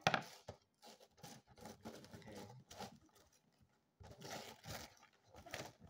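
Gift wrapping and packaging being cut and torn open by hand: irregular rips, crackles and rustles, loudest right at the start and again about four seconds in.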